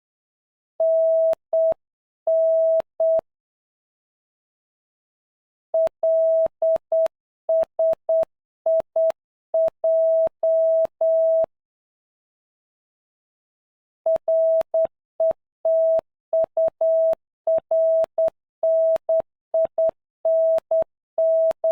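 Morse code tone from a trainer app: a single steady beep keyed on and off in short dots and longer dashes, sent in three runs of characters with pauses of a few seconds between them.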